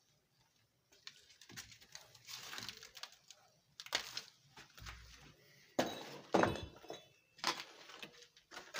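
Irregular crunching and scraping noises with several sharp knocks, starting about a second in.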